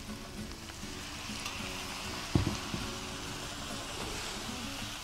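Minced beef, jackfruit and peas sizzling as they fry in a black wok, stirred with a wooden spoon, with a sharp knock about two and a half seconds in. The mix is being fried down (bhuna) until nearly dry.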